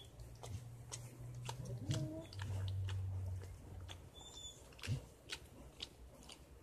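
A mother dog licking and cleaning her newborn puppy: repeated short wet licking and smacking clicks. A low steady hum sounds from about one to four seconds in, and a brief high squeak comes about four seconds in.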